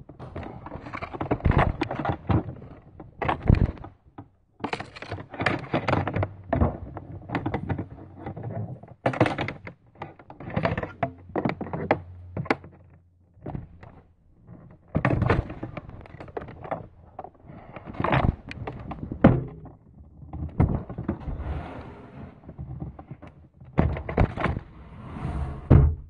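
Irregular thuds, knocks and rustling close to the microphone: handling noise from the phone being moved against the vacuum cleaner's body. A faint low hum under them fades out about halfway through.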